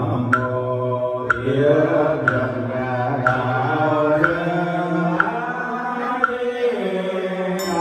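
Vietnamese Buddhist sutra chanting through a microphone, a sustained voice held on long tones. A wooden fish knocks about once a second to keep the beat, and a small bell is struck near the end.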